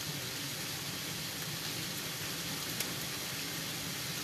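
Heavy rain coming down hard: a steady hiss of downpour, with a couple of sharp drop ticks.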